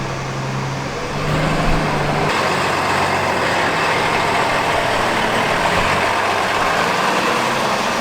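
A truck's engine running close by, growing louder about a second in and then holding a steady rumble.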